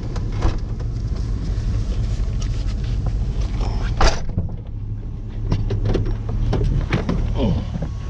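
An engine running steadily under a string of knocks and clatters, with one sharp knock about four seconds in and a run of smaller knocks near the end.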